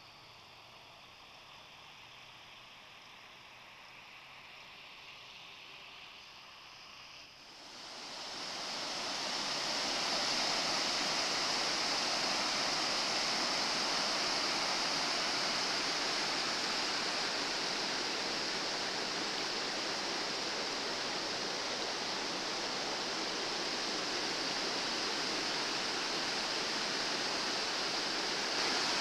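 Floodwater of the swollen Bečva river rushing fast, a loud steady rush of water that sets in abruptly about seven seconds in, after a much quieter opening.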